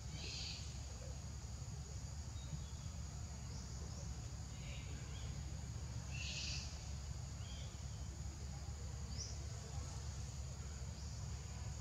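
Outdoor ambience of insects droning on a steady high pitch, with short high-pitched chirps every second or two over a low steady rumble.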